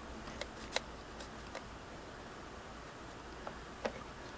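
A few faint, scattered metallic clicks from a screwdriver working the eccentric screw that sets the feed dog height on a Singer 221 Featherweight sewing machine, over a low steady room noise. The clearest click comes near the end.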